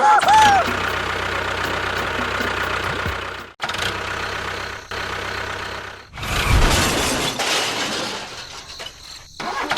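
Motor of a DIY mini bulldozer running steadily, broken off abruptly several times by cuts, with a brief wavering squeal at the start and a louder low rumble a little past the middle.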